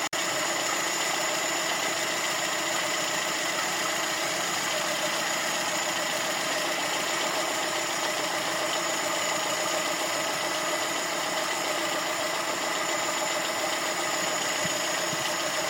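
Carburetted four-cylinder petrol engine of a VAZ 2108/21099 with a Solex carburettor, idling steadily at an even level.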